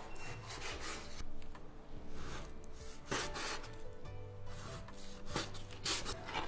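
Kitchen knife cutting the skin off pork on a wooden cutting board: several drawn-out strokes, the loudest about three seconds in and near the end, over faint background music.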